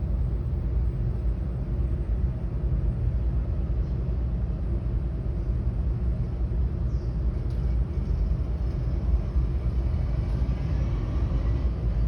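Jet airliner engines giving a steady low rumble, with a faint whine drifting in pitch near the end.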